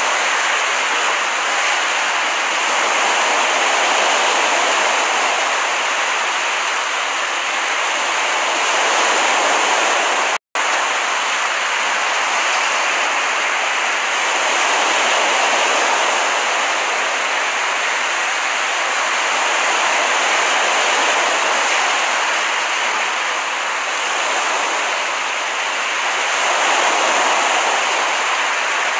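Recorded ocean surf: a steady wash of breaking waves that swells and eases every few seconds, with a split-second dropout about ten seconds in.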